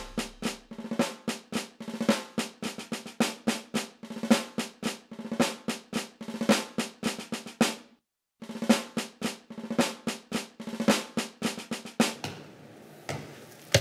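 Solo drum played in a quick string of sharp strokes, several a second, with a short break about eight seconds in; the drumming stops about twelve seconds in, leaving only faint hiss.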